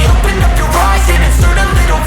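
Hip hop backing music with a heavy, steady bass and kick drums that drop in pitch a few times.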